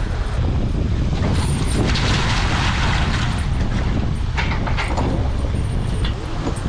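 A load of fish tipped out of a perforated plastic basket onto crushed ice, rushing and clattering for about a second and a half, with a couple of sharp knocks of the basket shortly after. A steady low rumble runs underneath.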